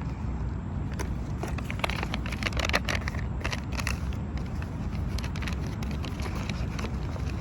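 Rustling and crackling of packaging being handled, densest about two to three seconds in, over a steady low rumble.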